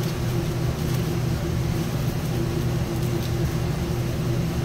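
Steady mechanical hum of commercial kitchen equipment running, a low drone with a steady higher tone over it.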